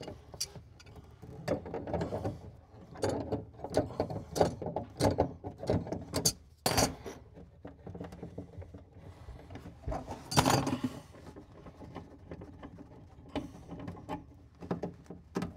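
Pliers and hands loosening the nuts of braided steel supply lines from brass shut-off valves, disconnecting a sink's water supply: scattered metal clicks, knocks and scrapes, with louder knocks about seven and ten and a half seconds in.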